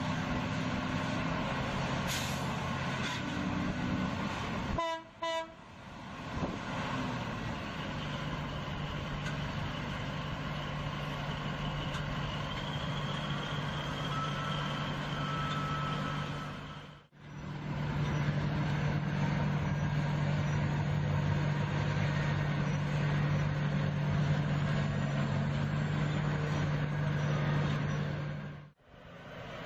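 Heavy machinery running steadily with a low engine hum, heard across several clips separated by short dropouts three times.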